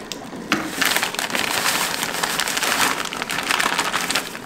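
Sugar pouring from a paper bag into a pot of hot cherries: a steady grainy hiss with crinkling of the paper bag, starting about half a second in.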